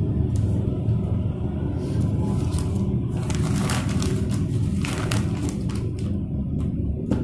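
Steady low rumble in the background, with the brown paper food wrapper rustling and crinkling in short bursts between about three and six seconds in as it is handled and opened out.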